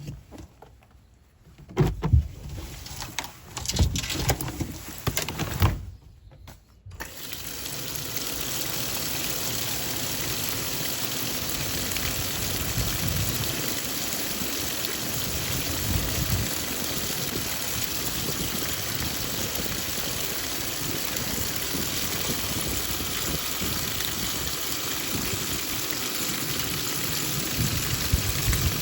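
Water pouring steadily from a tap into a twin-tub washing machine's tub, starting suddenly about seven seconds in. Before that come a few knocks and clunks.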